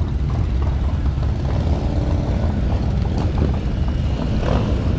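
A line of Harley-Davidson V-twin motorcycles running steadily in slow traffic, a dense, continuous low engine sound, with some wind on the microphone.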